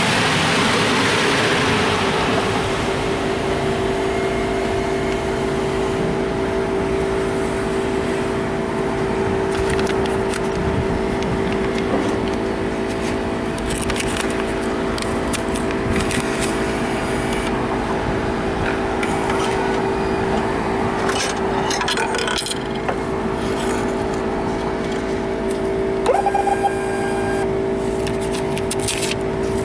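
Steady hum of car wash machinery, with clicks and rattles from the pay station as a bill is fed into its bill acceptor, and a short rising beep near the end.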